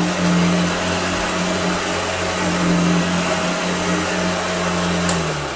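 Vintage Hoover Junior upright vacuum cleaner running on thick carpet: a steady motor hum with rushing air. Near the end there is a click, and the motor's pitch drops as it switches off and winds down.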